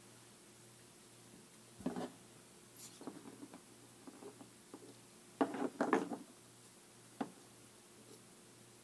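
Light taps and knocks of small tools handled on a wooden desk: a tube of flux picked up, used and set down, and a soldering iron taken up again. The loudest pair of knocks comes a little past halfway, with a single sharp tap about a second later.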